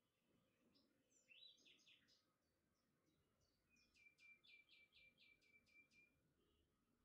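Faint birdsong: a few chirps, then a quick run of about eight repeated down-sweeping notes, about four a second, that stops about a second before the end.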